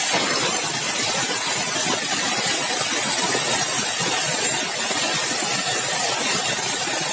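Sawmill saw cutting through a large log of dry, hard bengkirai (balau) timber: a steady, loud, grainy cutting noise.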